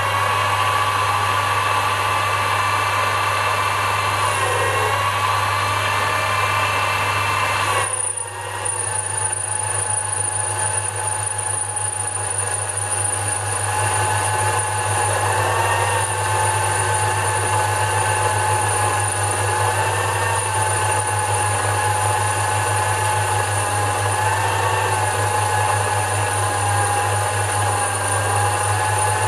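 Sherline micro lathe running at maximum speed, turning aluminium with a homemade carbide insert: a steady motor whine over a constant hum. About eight seconds in the whine drops in pitch and a thin high tone appears, and it wavers slightly as the cut goes on.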